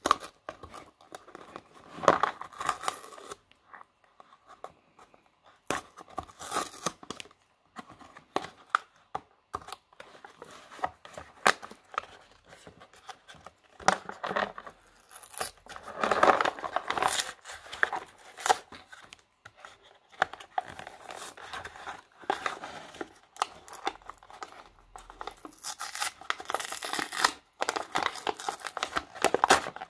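Cardboard candy box and its foil-lined inner bag being torn open by hand: short, irregular ripping and crinkling noises.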